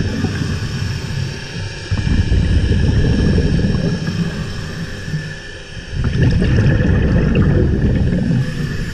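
Scuba diver breathing through a regulator underwater: rumbling gusts of exhaled bubbles that ease off about five seconds in and start again about a second later.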